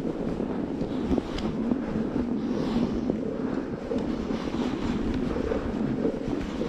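Wind buffeting the microphone: a steady, uneven low rumbling noise.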